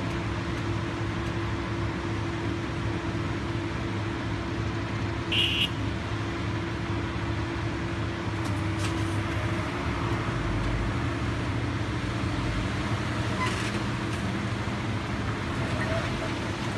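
Heavy diesel earthmoving machinery running steadily, with a brief sharp high-pitched sound about five seconds in and a few faint knocks later on.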